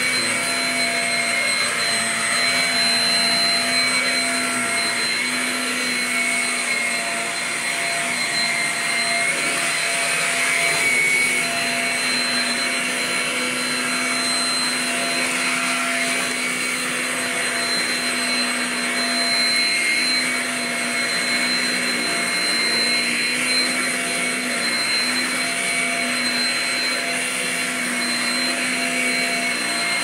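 Shark Rocket stick vacuum with a self-cleaning brushroll running steadily on carpet: a high motor whine over the rush of suction.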